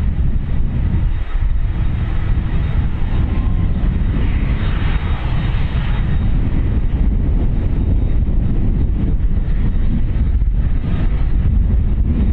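Airbus A330-200 jet engines running, with a steady engine whine that swells for a couple of seconds about four seconds in, over a heavy low rumble of wind on the microphone.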